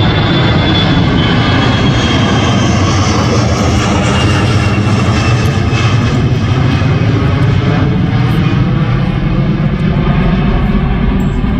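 Loud jet engine noise from a twin-engine airliner passing low overhead. A high engine whine falls in pitch as the plane goes by.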